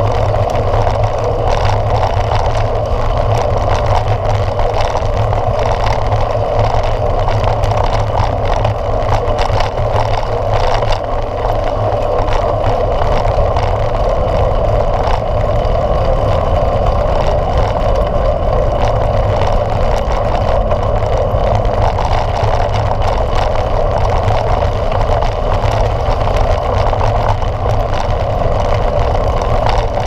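Steady riding noise from a mountain bike rolling along a dirt road: wind rushing over the handlebar-mounted camera and the tyres running on the packed dirt, an even, loud rush.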